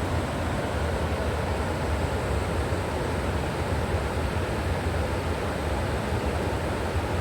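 River water rushing steadily, with a deep low rumble under the hiss of the flow.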